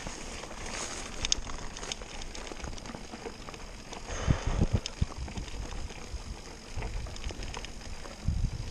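Mountain bike riding fast along a grassy dirt track: tyres rolling and tall grass swishing against the bike, with scattered clicks and rattles from the bike and wind rumbling on the microphone. A few low knocks come about four to five seconds in as the bike hits bumps.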